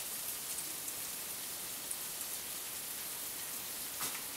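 Potato pieces frying in hot oil in a frying pan: a steady, even sizzle with a slightly louder crackle near the end, a sign the oil is hot enough to fry.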